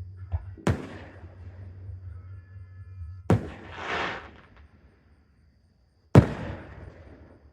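Aerial fireworks bursting: three loud, sharp bangs a few seconds apart, the last and loudest about six seconds in, with a swelling hiss after the middle one.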